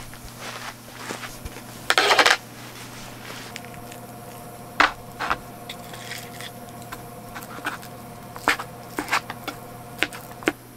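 Spoon scraping and clicking against a tin of canned dog food as the food is scooped out onto a small dish: a longer scraping rush about two seconds in, then a series of sharp clicks and knocks.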